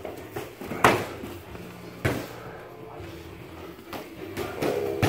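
Punches and kicks landing in kickboxing sparring: a sharp smack about a second in, the loudest, another about two seconds in, and lighter knocks between.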